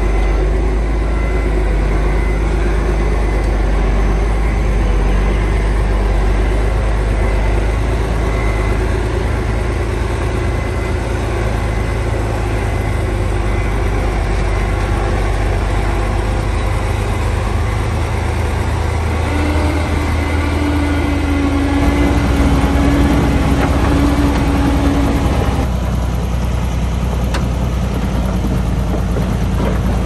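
Komatsu D20P crawler bulldozer's diesel engine running steadily while the dozer works soil, with a higher steady whine joining for several seconds about two-thirds of the way through.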